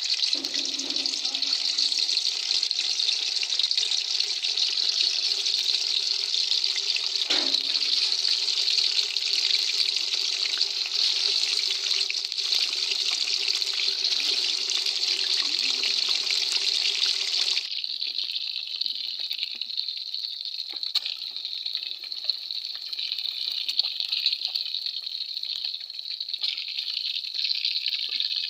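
Fish pieces sizzling as they shallow-fry in hot ghee, a dense steady crackling hiss. About two-thirds of the way through it turns duller and slightly quieter.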